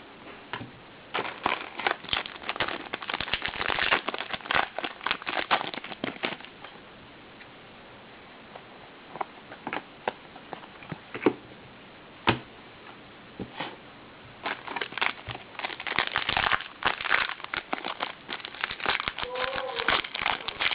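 Crinkling and crackling of a trading-card pack wrapper being torn and handled, with cards being shuffled, in two busy stretches separated by a few seconds of scattered light clicks.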